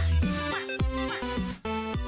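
Background electronic music with a steady beat and deep bass drops.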